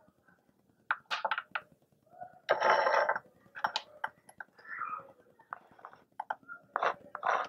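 A small knife scraping chopped tomatoes off a miniature wooden cutting board onto a small ceramic plate: a few sharp taps and clicks, a longer scrape about two and a half seconds in, then more taps.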